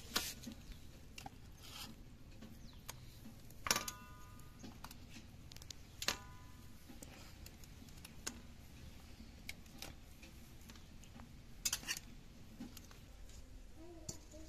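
Stainless steel bowls and a plate knocking together as they are handled, about four sharp clinks, two of them ringing briefly.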